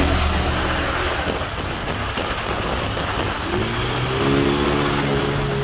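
Heavy rain falling steadily on a wet road. About three and a half seconds in, a vehicle engine is heard, its pitch rising briefly and then holding steady for a couple of seconds.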